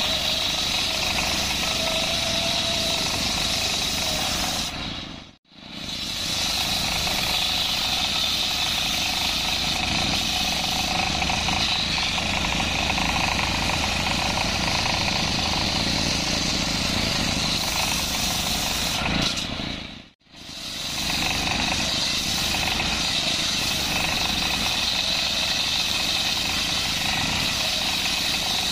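Diesel-engine-driven circular saw running and ripping a coconut-palm trunk lengthwise, with a steady high saw whine over the engine. The sound cuts out briefly twice, at about five seconds and about twenty seconds in.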